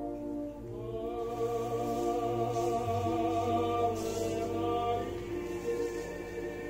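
Operatic singing with orchestra playing from a vinyl LP on a turntable, the voice holding long notes of several seconds each.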